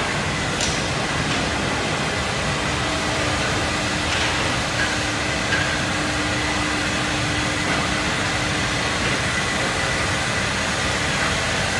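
Steady din of woodworking machinery running in a trade-fair hall, with a faint steady whine from a motor partway through.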